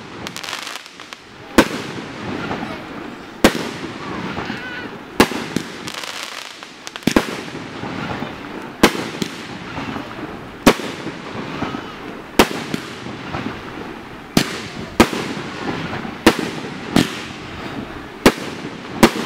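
Fireworks display: bursts going off in sharp bangs about every two seconds, a couple coming in quicker pairs near the end, with a steady hiss and crackle between them.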